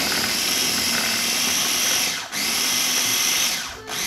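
Small electric food processor whirring as it shreds cabbage, pulsed on three times with brief stops between.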